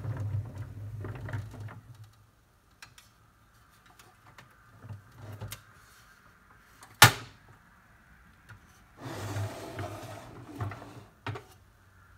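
Pressed-steel Mighty Tonka dump truck rolled on its tires across a wooden workbench, a low rumble for the first two seconds. About seven seconds in, a single sharp metal clank from the steel dump bed being worked. Then another couple of seconds of rolling and scraping as the truck is moved, and a short click near the end.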